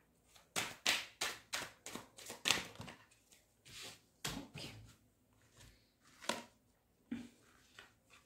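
Tarot cards being handled and drawn from the deck: a quick run of about eight light taps and slaps in the first three seconds, then a few separate taps as cards are laid down.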